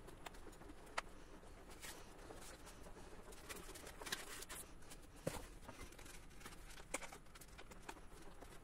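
Faint handling sounds of a foam model glider being assembled by hand: light rustling of the foam parts with a few sharp little clicks as the pieces and wiring are fitted together.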